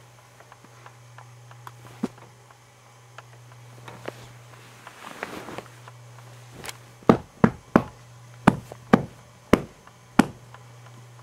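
A run of about seven sharp knocks or taps at uneven intervals, beginning about seven seconds in, over a steady low hum.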